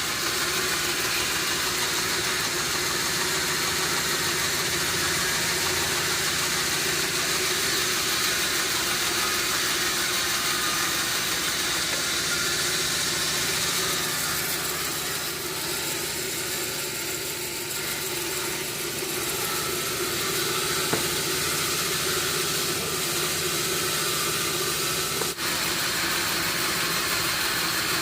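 Sawmill machinery running steadily: a constant motor hum with a hiss over it, broken by a brief click a few seconds before the end.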